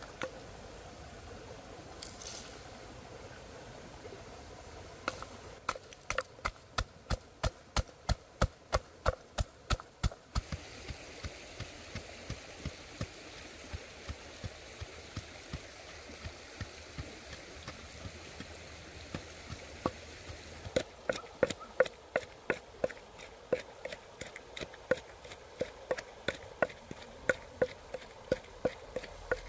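Steady rhythmic knocking, about three sharp strikes a second, for about five seconds, then stopping abruptly; it starts again about two-thirds of the way through at a similar pace and carries on.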